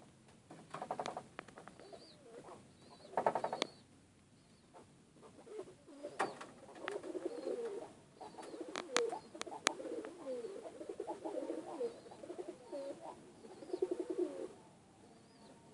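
Domestic pigeons cooing in low, warbling calls through the second half. A short rattling burst comes about a second in and again about three seconds in, and a few sharp clicks fall between six and ten seconds.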